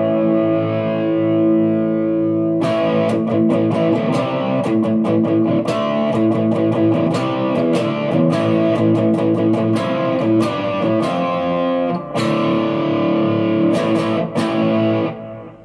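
Electric guitar played through a NUX Plexi Crunch, a Marshall Plexi-style overdrive pedal, giving a crunchy, distorted tone. A held chord rings, then about two and a half seconds in a run of strummed chords with sharp pick attacks begins. The chords die away near the end. The playing shows off the pedal's gain control.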